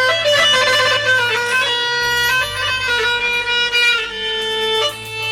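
Instrumental music: a sustained, violin-like lead melody over a steady low bass line, with no singing.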